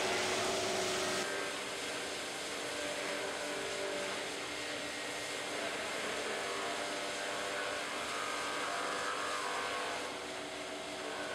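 Electric slot-mortising machine running and boring into wood: a steady motor noise with a thin high whine, harsher and louder for about the first second while the bit cuts.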